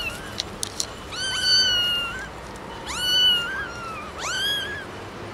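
Kittens meowing: three high-pitched meows, each rising quickly and then held for about a second, with a few faint clicks before the first.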